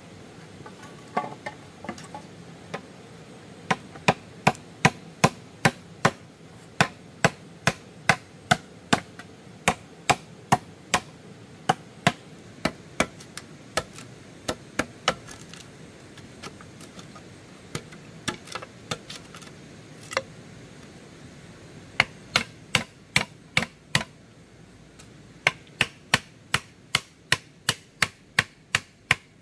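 Runs of sharp, evenly spaced blows from a hand tool, about three a second, broken by short pauses and starting again several times.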